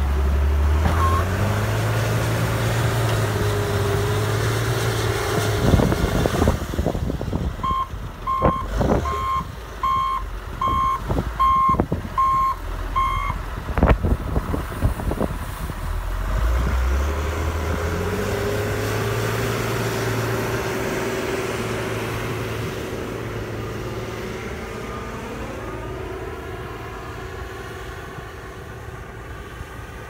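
John Deere 544H wheel loader's diesel engine revving as it works snow with its pusher blade, with several heavy clunks and knocks. In the middle its backup alarm sounds a steady string of beeps for about six seconds while it reverses. It then revs up again and fades, rising in pitch near the end.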